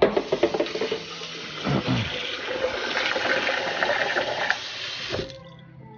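Tap water running into a plastic blender jar in a kitchen sink as it is rinsed out; the water is shut off abruptly about five seconds in.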